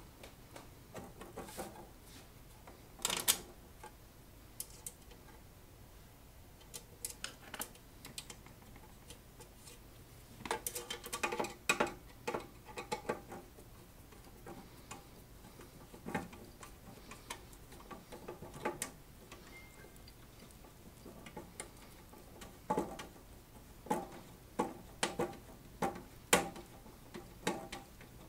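Irregular clicks, clinks and knocks of hand tools and screws handled on a metal tube-amplifier chassis during reassembly, coming in a busy run about ten seconds in and again near the end.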